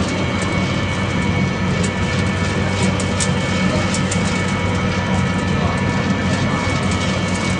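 Wood pellet machine running with a steady, loud mechanical hum. Fresh pellets pour out of a chute and rattle onto a steel tray with scattered sharp clicks.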